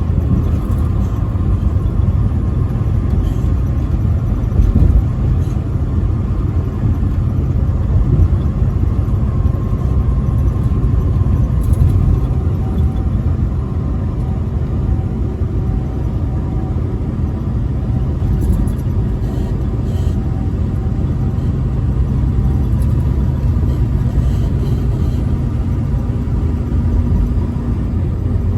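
Truck driving on the interstate: a steady low rumble of engine and road noise, with a faint steady whine above it.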